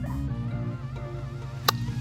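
Background music with sustained low notes and a wavering melody, and a single sharp click near the end.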